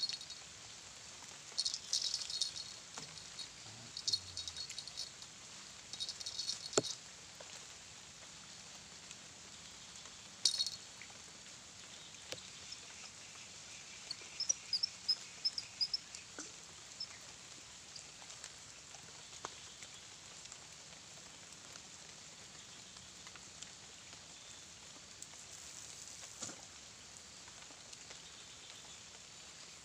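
Quiet riverside ambience: a steady faint hiss with a few brief high chirping bursts in the first seven seconds, a quick run of short chirps about halfway through, and a handful of sharp single clicks.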